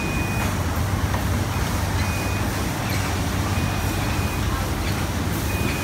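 Steady low mechanical hum under an even hiss, with a faint thin whine that comes and goes a few times.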